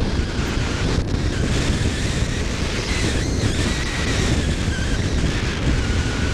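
Wind rushing over the microphone of a camera riding on a Bixler 2 RC plane in flight, with the faint whine of its electric pusher motor and propeller underneath, drifting slowly in pitch.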